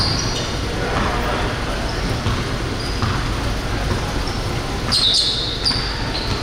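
Basketball game in a gym: sneakers squeak on the court floor a few times, most around five seconds in, over a steady murmur of crowd noise.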